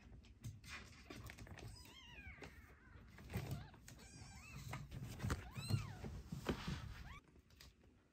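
Young kitten meowing over and over in short calls that rise and fall in pitch, over the clatter of pellet cat litter being scratched. It all stops abruptly near the end.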